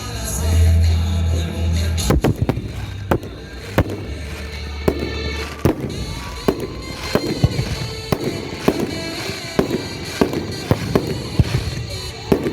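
Fireworks going off: a quick irregular series of sharp bangs and crackles, over music with a heavy bass line.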